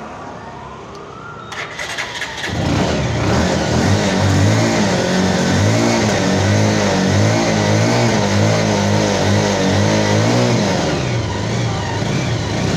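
Bajaj Pulsar 180's single-cylinder engine starting about two seconds in, then revved up and down repeatedly, easing back near the end.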